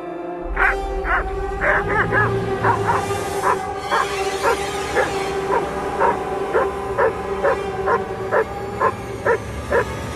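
Black German Shepherd barking over and over at a steady pace, about two barks a second: the aggressive barking of schutzhund protection work.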